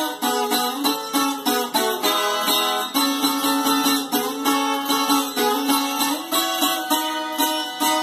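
Viola caipira, the Brazilian ten-string folk guitar, being plucked in a steady run of bright, ringing notes, several a second.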